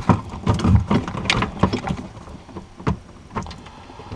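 Hands fiddling with small wiring connectors: a run of clicks, taps and rustles, busiest in the first two seconds, then a few scattered ticks.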